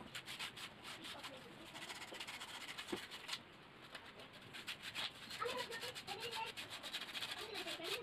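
Rapid back-and-forth scraping strokes on plywood by hand, many strokes a second, pausing for about a second midway before starting again. Faint voices in the background near the end.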